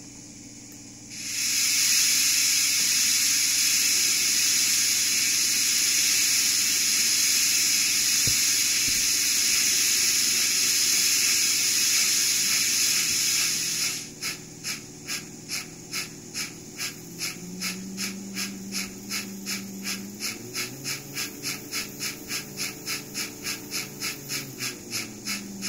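ESU LokSound v4.0 decoder's steam-locomotive sound played through a model's small speaker: a loud steady steam hiss that starts about a second in and stops about halfway, followed by rhythmic exhaust chuffs at about two a second that quicken to about three a second. A faint low whine rises and falls under the chuffs.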